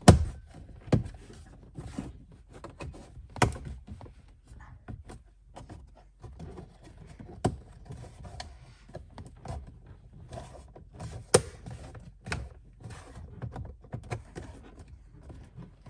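Plastic interior trim of a pickup's dashboard being handled and pressed back into place: scattered clicks and knocks, the loudest right at the start and about three and a half and eleven seconds in.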